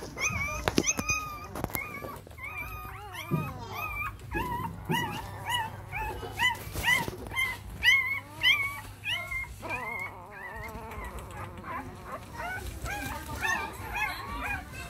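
A litter of young puppies whimpering and crying, a fast, overlapping run of short high-pitched squeals. A few sharp knocks come about a second in.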